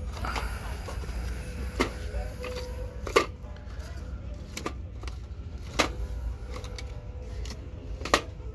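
Boxed diecast model cars being handled on a metal store shelf: cardboard-and-plastic packages sliding and rustling, with about four sharp clacks as boxes knock against the shelf and each other, over a steady low hum.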